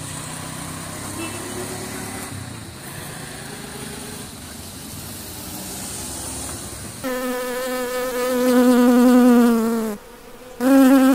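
Over a low steady background hum, a loud bee buzz cuts in about seven seconds in: a strong drone that wavers and sinks slightly in pitch. It stops after about three seconds and comes back briefly near the end.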